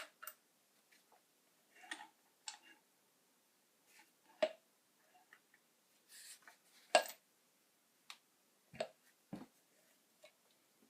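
Irregular clicks and knocks of small hard objects being handled, with two louder knocks about four and a half and seven seconds in and a brief scuff between them.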